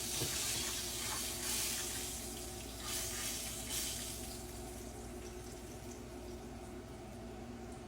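Water running from a kitchen tap into a sink, a steady hiss that eases off about four seconds in.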